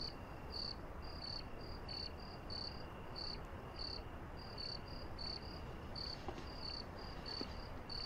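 Crickets chirping: short, high chirps repeating two or three times a second over a faint steady hiss.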